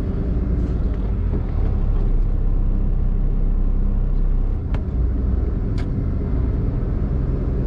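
Steady low rumble of a truck's engine and road noise, heard from inside the cab while driving. Two short clicks come about a second apart past the middle.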